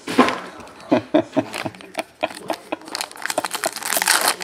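Foil trading-card pack wrapper crinkling as it is handled and torn open. Scattered rustles and clicks build into dense, continuous crinkling about three seconds in.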